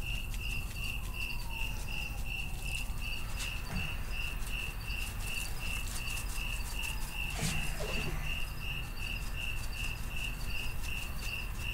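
A cricket chirping steadily outdoors at night, short chirps of one pitch at about three a second, with faint soft taps from the work at the cutting board.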